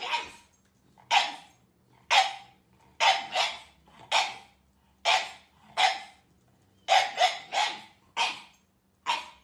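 A dog barking over and over in short, sharp barks, roughly one or two a second, some coming in quick pairs and triples.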